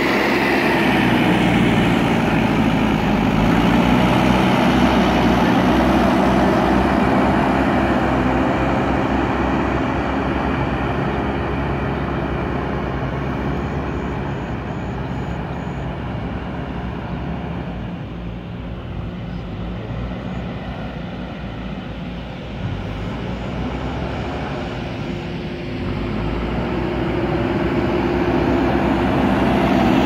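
JCB 3DX backhoe loader's four-cylinder diesel engine running as the machine drives over loose dirt, fading as it moves off and growing louder again near the end as it comes close.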